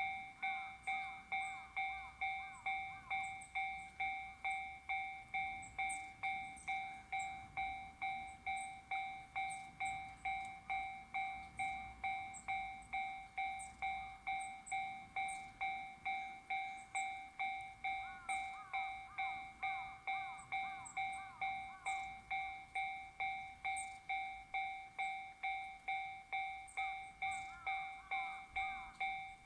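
Japanese level-crossing alarm sounding the JR standard electronic tone: a bell-like ding repeating steadily at about two strikes a second, each strike fading before the next.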